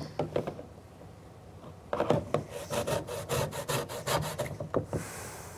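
Thick cake batter being stirred by hand in a bowl, the utensil scraping and slapping through it in quick, irregular strokes, with a pause of about a second near the start. The batter is thick because only half of the wet ingredients are in.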